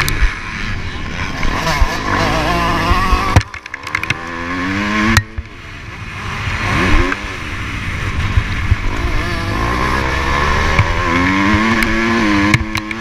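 Motocross bike engine heard from on board, revving up and down as the rider works the throttle and gears. The engine sound cuts out sharply about three and a half seconds in and climbs again. A low rumble of wind on the microphone and knocks from the bike run underneath.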